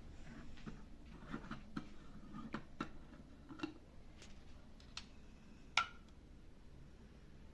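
Irregular small clicks and taps of kitchen utensils and containers being handled, with one sharper, briefly ringing clink nearly six seconds in.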